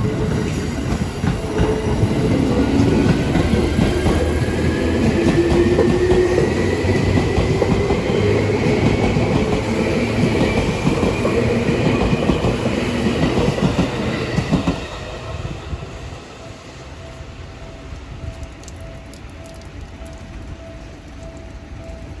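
A Seibu Railway electric train runs past with wheels clattering over the rail joints, its motor whine rising steadily in pitch as it gathers speed. The noise cuts down sharply about two-thirds of the way in, leaving a level-crossing warning bell ringing in an even rhythm.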